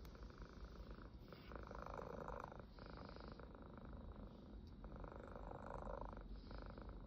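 Domestic cat purring steadily, the purr swelling and dipping with each breath about every one and a half to two seconds.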